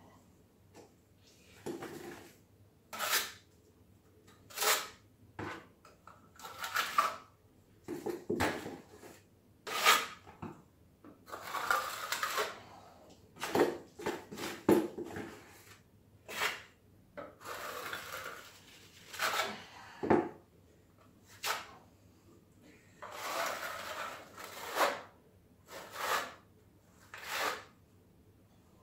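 Repeated scraping strokes of a steel plastering trowel spreading and dragging bonding plaster across a patched brick wall, with scoops of plaster from a plastic bucket. The strokes are short and irregular, about one a second.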